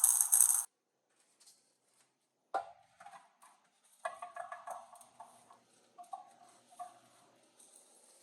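A loud, crackling hiss that cuts off suddenly under a second in, then scattered light, ringing metallic clinks and taps.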